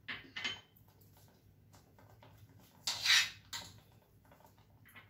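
A few short scrapes or clatters of kitchen utensils. Two come close together at the start, and the loudest comes about three seconds in.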